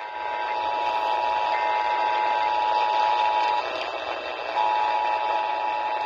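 Emergency Alert System attention signal, the steady two-tone alarm, coming over AM radio with a hiss of static behind it. The tone drops out for about a second midway, then resumes.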